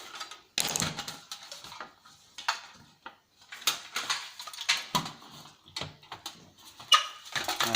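Irregular clicks, knocks and rattles of plastic and metal parts from an old CRT TV/DVD combo being handled and pulled apart by hand.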